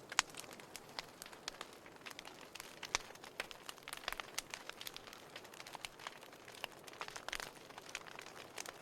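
Wood fire crackling: irregular sharp pops and snaps over a soft hiss, with one of the louder pops just after the start.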